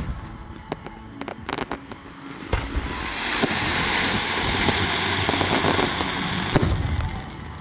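Fireworks going off: a few sharp bangs in the first couple of seconds, then from about two and a half seconds a loud, dense crackling hiss that drops away about seven seconds in.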